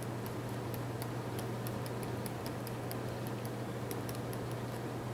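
Light, irregular clicks of a pen writing, several a second, over a steady low hum.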